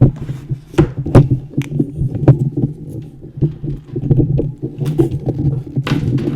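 Handling noise on a USB microphone: irregular knocks and clicks over a steady low rumble as the mic is touched and adjusted close up. It starts abruptly.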